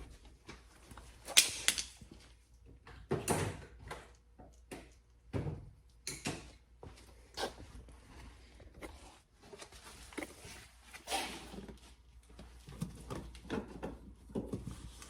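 Irregular clicks, taps and knocks of plastic door trim pieces being handled and pushed into place on a car door, the clips snapping on.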